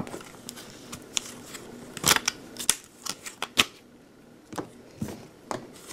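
Hard plastic parts of an ultrasonic essential oil diffuser clicking and knocking as they are handled and pulled apart, in irregular taps with a few sharper knocks about two, three and a half and five seconds in.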